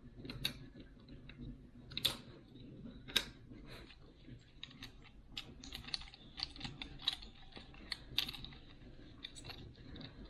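Irregular light clicks and taps of hands fitting together the small plastic and metal parts of a binocular kit: tripod, tripod adapter and phone adapter. A few sharper clicks stand out, about 2 and 3 seconds in and again near 8 seconds.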